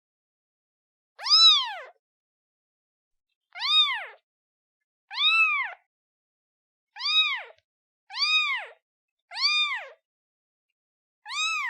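Newborn kitten meowing for its mother: about seven short, high meows, each rising and then falling in pitch, one to two seconds apart.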